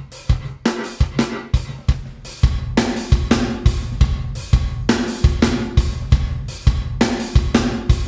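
Drum kit loop (kick, snare, hi-hat and cymbals) playing through the D16 Group Spacerek reverb plugin. About two and a half seconds in, another reverb preset takes over and the pattern turns busier and denser.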